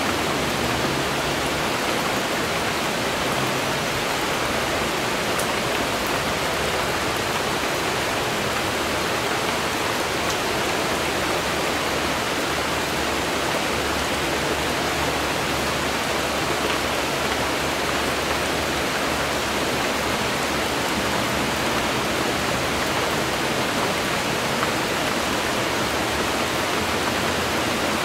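Steady rain falling outdoors, an even, unbroken hiss that does not change in level.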